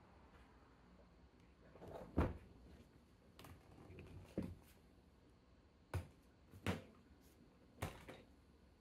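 Hard plastic Pelican roller case knocking and clunking as it is tipped and handled: several short, dull knocks, the loudest about two seconds in.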